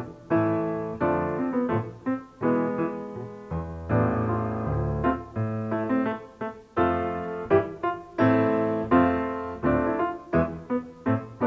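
Solo piano music: chords and single notes struck in quick succession, each fading away, over low bass notes.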